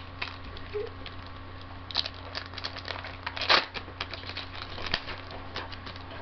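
Yu-Gi-Oh booster pack being torn open and its cards handled: an irregular run of crinkles and rustles, with louder ones about two seconds and three and a half seconds in.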